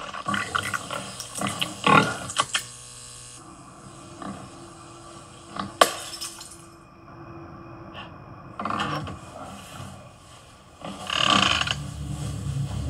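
Sound effects from an animated horror short: scattered clicks and knocks, the sharpest a single crack about six seconds in, with short noisy bursts later on.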